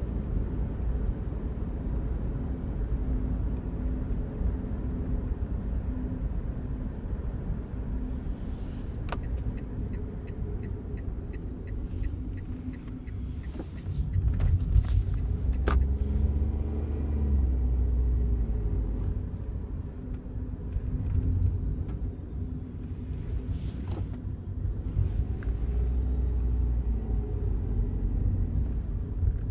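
Cabin noise in a moving Daihatsu Wake: a steady engine and road drone, with a brief fast buzzing rattle about nine seconds in and a few sharp clicks scattered through. The rattle comes from the dashboard in front of the passenger seat, a fault that appeared a month after delivery.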